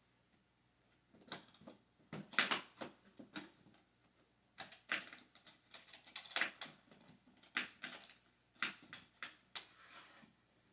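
Latches and case lid of a hardshell guitar case being worked open: a run of irregular sharp clicks and snaps.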